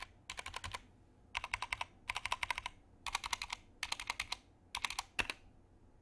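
Typing on a Keychron K2 mechanical keyboard: short bursts of rapid keystroke clicks with brief pauses between them, stopping a little after five seconds in.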